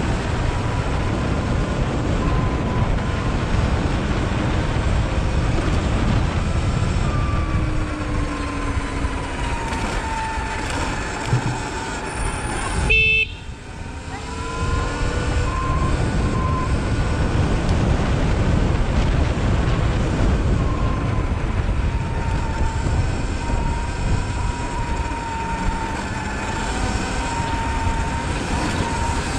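Riding noise from a Sur Ron electric dirt bike in city traffic: a steady low rumble of wind and road noise with the electric motor's thin whine rising and falling with speed. About thirteen seconds in a vehicle horn toots briefly, and the sound drops out for a moment.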